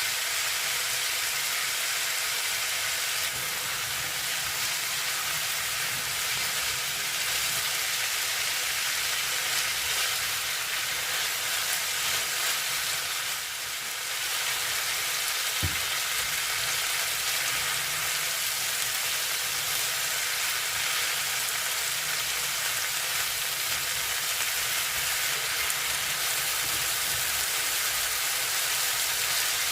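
Food frying in a pan with a steady sizzle. There is one short knock about halfway through.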